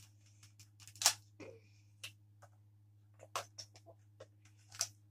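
Scattered sharp clicks and knocks, about ten over a few seconds, from toy Nerf blasters being handled and put back to their standard setup, over a faint steady low hum.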